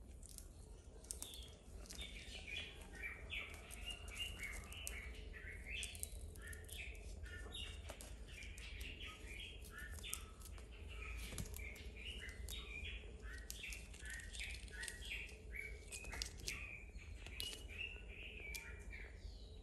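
Small birds chirping continuously in a dense run of short, quick notes, with a few light clicks mixed in.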